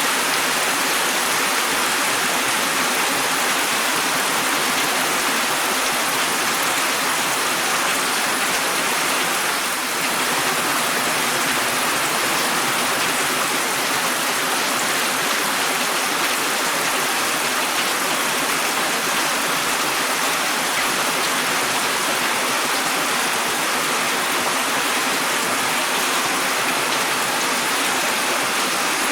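Steady, dense rain falling.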